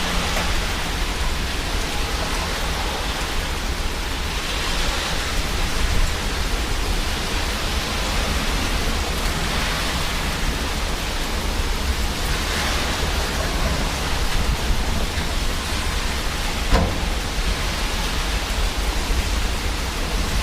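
Thunderstorm wind and rain: a steady rush of rain with gusts swelling and easing, and wind buffeting the microphone as a deep rumble. One sharp tap about three-quarters of the way through.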